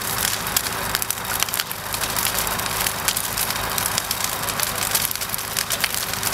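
A steady motor hum under a dense, irregular crackling.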